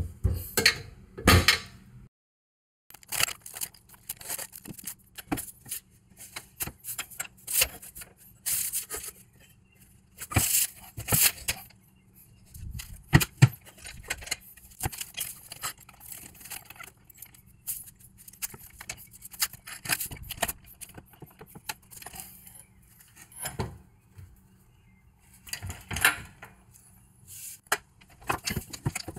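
Hand work on car suspension parts and tools: irregular metallic clinks, knocks, scrapes and rattles with pauses between them, the loudest knocks about ten and thirteen seconds in and again near the end.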